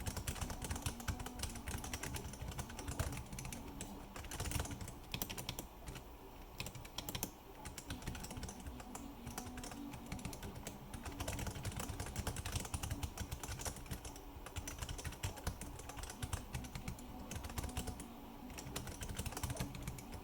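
Continuous fast typing on the Riskeyboard 70 mechanical keyboard, a steady stream of key clicks. The switches are unlubed and not yet broken in, and the wobbly space keys have no stabilizers.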